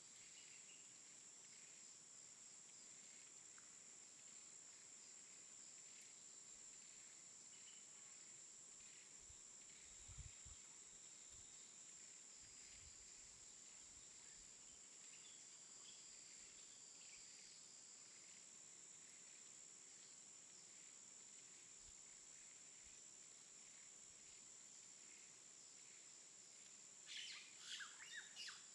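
Near silence: a faint steady high-pitched whine over low hiss, with a few faint chirps and a brief flurry of them near the end.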